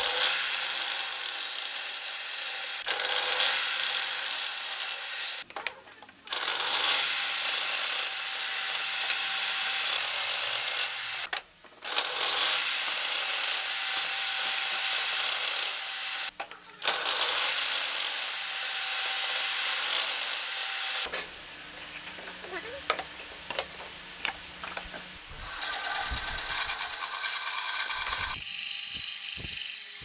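Table saw ripping thin wooden boards, four cuts of a few seconds each with short breaks between. Near the end it gives way to a quieter, steadier machine hum as a bandsaw runs.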